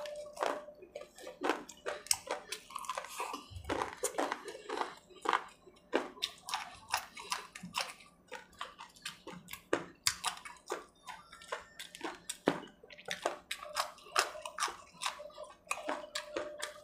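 Close-up chewing and crunching of crisp fried potato and onion pakoras, with irregular crunches several times a second.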